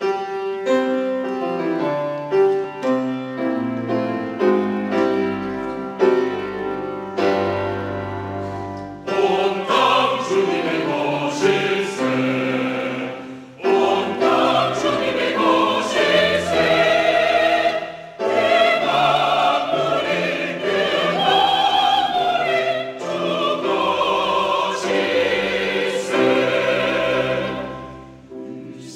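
Church choir singing a sacred anthem in mixed voices with accompaniment. An instrumental introduction plays for about the first nine seconds, then the full choir comes in.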